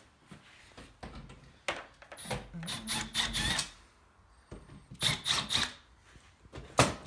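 Cordless drill/driver backing a screw out of a steel breaker-panel cover, its motor running in a steady spell of about a second, amid clicks and knocks of metal on metal, with a sharp click near the end.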